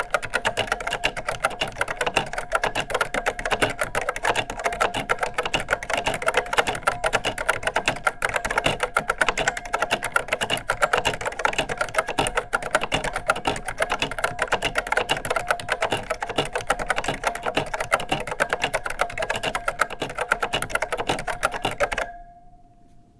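Continuous fast typing on a vintage Unitek K-155 keyboard with Marquardt Series 6180 linear switches: scratchy keystrokes with a ringing ping from the big, roomy case. The typing stops about a second before the end, and the ping rings on briefly.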